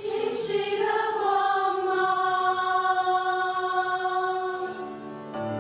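Background music: a singing voice holds one long note for about four seconds, then fades, and piano notes come in near the end.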